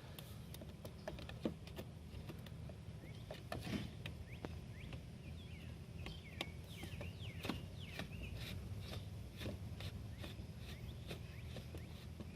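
Scattered faint clicks and taps of hands and tools working a car's front turn-signal lamp housing loose from the bumper. Birds chirp in the background through the middle of the stretch.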